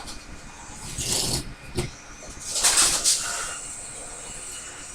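Rustling and swishing of tall, tough weeds being cut with a small cordless blade cutter, in short bursts about a second in and a louder one near the middle, with a sharp tick between them.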